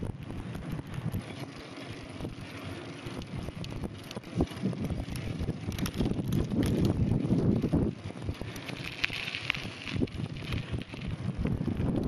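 Giant mountain bike being ridden over a dirt track: tyre noise with scattered knocks and rattles from the bike, and wind buffeting the microphone. It grows louder about halfway through.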